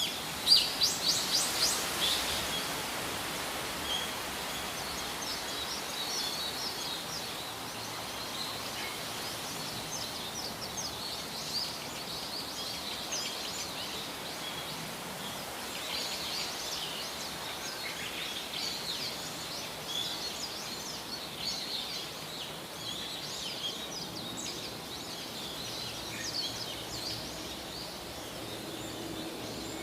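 Wild birds calling and chirping over a steady outdoor hiss, with a loud, quick run of repeated notes in the first two seconds and many scattered chirps and short trills after it.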